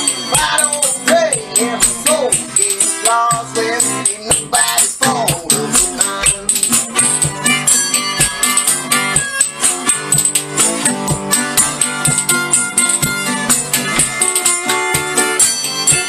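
Background music: a song with a fast, steady shaker-like beat and plucked guitar, with a melody line that bends in pitch during the first few seconds.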